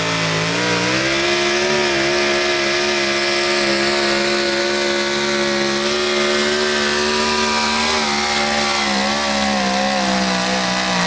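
Pro stock 4x4 pulling truck's engine held at high revs under full throttle during a pull. The pitch climbs in the first second, then holds high and steady.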